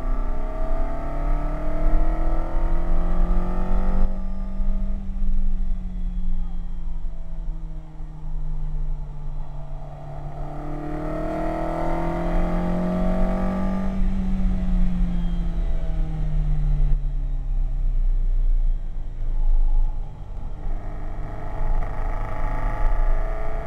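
Ferrari 308 GTB's V8 heard from inside the cabin, revving up through the gears and easing off for corners: it climbs, drops about four seconds in, climbs and falls again in the middle, and picks up again near the end. A steady low rumble runs underneath.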